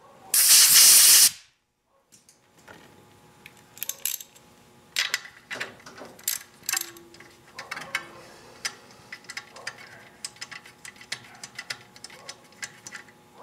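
A short, loud blast of compressed air from an air nozzle, about a second long, clearing debris from around the spark plug of a Honda GX31 four-stroke engine. It is followed by a run of light, irregular metallic clicks and taps as a wrench loosens and removes the spark plug.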